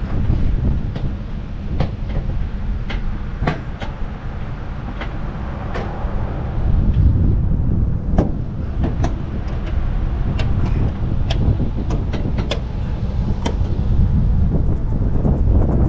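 Sharp metallic clicks and knocks, irregular and repeated, as the latches of the APU access doors on the aircraft's underside are fastened, over a steady low rumble.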